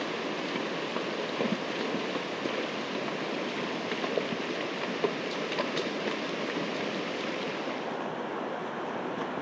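A fast-flowing river running high makes a steady rush of water, with a few brief knocks in it.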